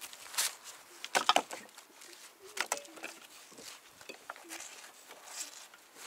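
Rusty iron scrap being pulled off a neodymium search magnet by gloved hands: a run of sharp metallic clicks and knocks, the loudest cluster about a second in.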